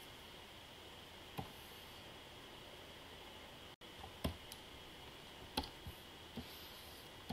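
Scattered short, sharp clicks of computer input devices as someone works at a desk, about seven of them, most in the second half. A faint steady high whine sits underneath.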